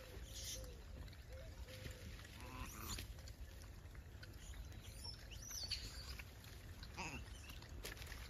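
Troop of gray langurs feeding in grass and undergrowth: faint rustling and handling sounds with a few short squeaks now and then.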